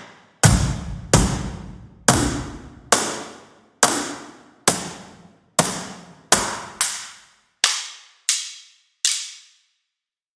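Sampled cardboard-box percussion hits from a virtual instrument, played singly about once a second, each with a reverberant tail. About a dozen hits; they lose their deep low end toward the end, and the last comes near the end.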